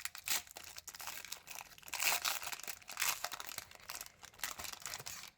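Foil Pokémon booster pack wrapper crinkling and tearing as it is opened, a dense run of crackles with louder bursts about two and three seconds in.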